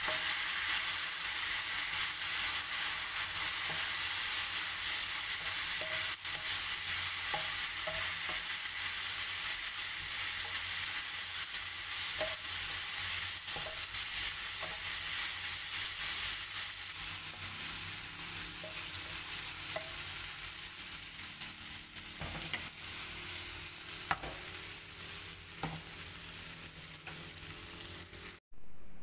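Green chillies, green tomato and salted soybeans sizzling in oil in a nonstick frying pan, stirred with a wooden spatula that scrapes and taps the pan now and then. The sizzle eases somewhat over the second half, then cuts off abruptly near the end.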